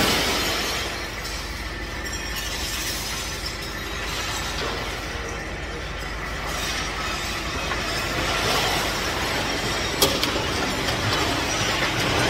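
Mixed scrap metal sliding and grinding out of a raised steel dump bed and clattering onto the ground, with a sharp metal clank about ten seconds in.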